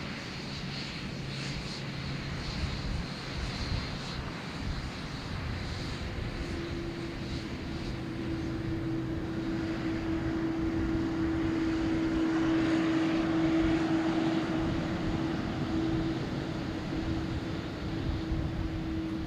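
Jet airliner taking off: steady engine noise at takeoff power grows louder, peaks about two-thirds of the way through, then eases, with a steady humming tone coming in about a third in.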